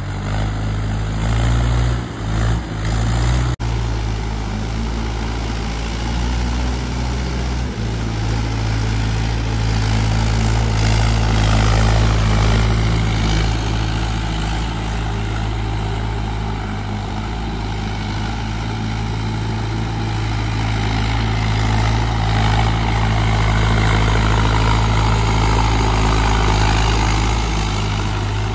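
Tractor's diesel engine running steadily under load as it churns through a flooded paddy field on cage wheels, puddling the mud for rice transplanting. Its tone shifts slightly a few seconds in.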